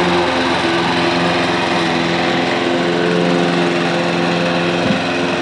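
Small gasoline lawn mower engine running steadily, with one short knock near the end.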